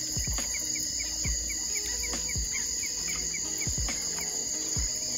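Night chorus of crickets and other insects, a steady high-pitched drone, with a quick run of short chirps in the middle.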